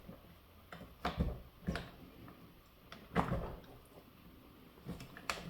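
Scattered light clicks and knocks of the model crawler's track and wheels being handled as the track is worked onto the rear sprocket.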